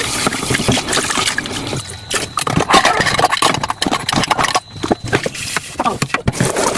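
Close-miked eating sounds: wet chewing and mouth noises, broken by many short clicks and smacks.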